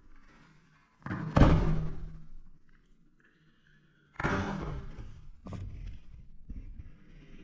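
Handling noise from assembling a modular synthesizer kit: a loud thump about a second and a half in, then another knock with clattering and rubbing from about four seconds in that fades out.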